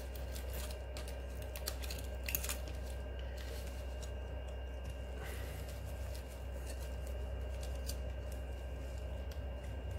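Utility-knife blade cutting the spines off a golden barrel cactus (Echinocactus grusonii): a scatter of small crisp clicks and scrapes, busiest about two seconds in, over a steady low hum.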